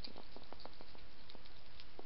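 European hedgehog eating from a dish: quick, irregular chewing and crunching clicks, several a second, over a steady hiss.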